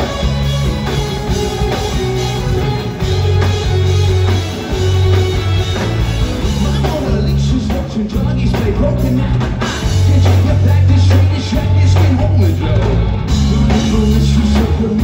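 Live rock band playing loudly, heard from the audience in a large hall: drum kit, electric guitar and a lead singer's voice.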